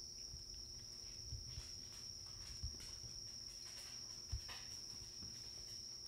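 Faint, steady high-pitched trill of insects, with a few soft low knocks.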